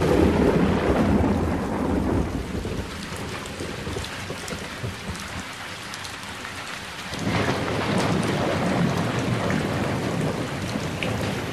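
Thunder rumbling over steady rain, with light drop patter. A heavy roll at the start fades away, and a second roll swells suddenly about seven seconds in.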